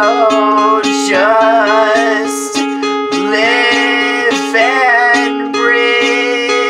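Acoustic guitar picking a steady, repeating pattern of notes while a voice sings long, held notes over it, in a small room.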